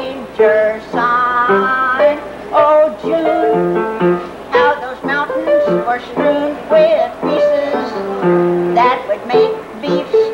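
Kitchen band playing a lively tune: several melody parts over piano and strummed banjo.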